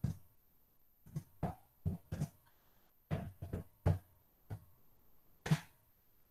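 Computer keyboard keystrokes: about a dozen short, irregularly spaced key taps as a few words are typed, the loudest one near the end.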